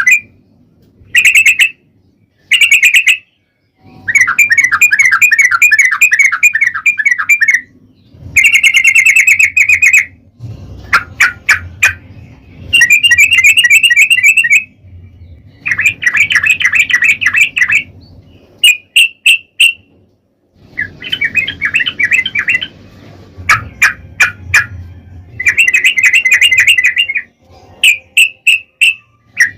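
Yellow-vented bulbul (trucukan) singing loud, fast, bubbling phrases one to three seconds long with short pauses between them, mixed with runs of quick, sharp separate notes. This is the long, rolling 'ropel' song.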